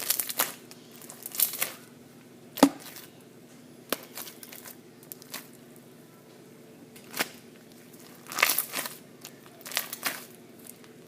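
Slime being squeezed and pressed, crackling and popping in irregular bursts with quiet gaps between.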